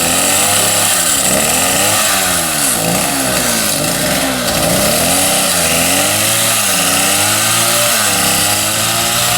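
Petrol chainsaw cutting a tree, its engine pitch dipping and rising again every second or so.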